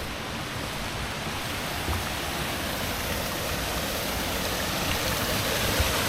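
Steady rushing of a waterfall and stream at a small dam, a continuous hiss of falling water that grows slowly louder.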